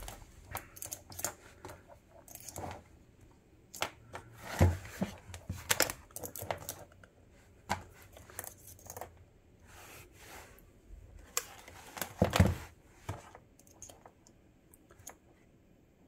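Scattered clicks, rustles and knocks from a digital multimeter, its test leads and power cables being handled, with two louder knocks about four and a half and twelve seconds in.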